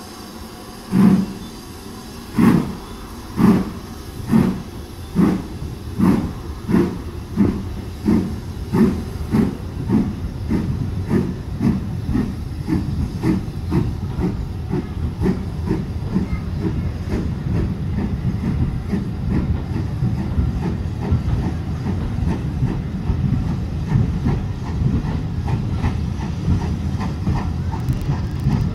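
Steam locomotive starting away. Its exhaust beats begin a little over a second apart and quicken steadily. About halfway through they blur into a continuous chuffing rumble as the train picks up speed.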